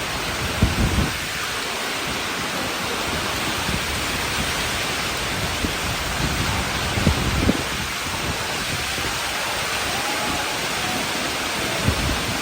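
Heavy storm rain pouring down in a steady, loud hiss, with a few brief low bumps of wind about a second in and again past the middle.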